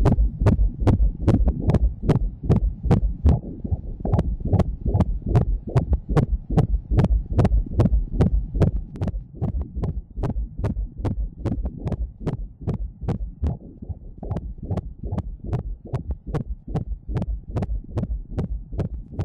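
Fetal heartbeat heard through an ultrasound machine's Doppler audio: fast, even pulses of about two and a half beats a second, each with a sharp tick over a low throb.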